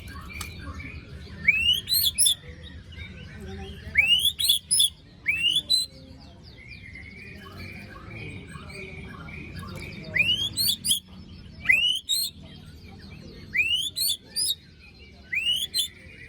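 White-rumped shama (murai batu) calling in six short bursts of sharp rising whistles, each topped with high buzzy notes, over fainter repeated chirping. These are the harsh 'besetan' phrases of a bird singing after its moult.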